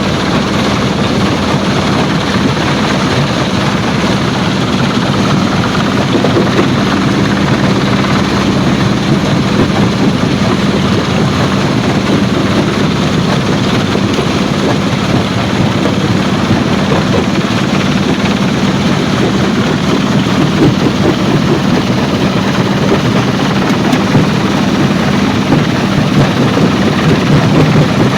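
Stone crushing plant machinery running steadily: a loud, continuous mechanical noise with a steady low hum.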